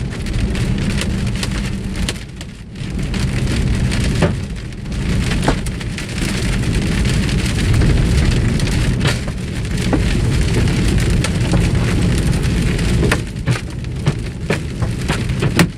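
Large hailstones, about 2 inches across, pelting a vehicle's roof and windshield, heard from inside the cabin. It is a dense, continuous clatter with many sharp individual cracks, over the steady low rumble of the moving vehicle.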